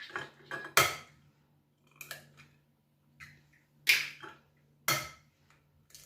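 Eggs being cracked against the rim of a bowl: a series of short, sharp knocks, the loudest about a second in and again around four and five seconds in, with lighter taps and clinks between.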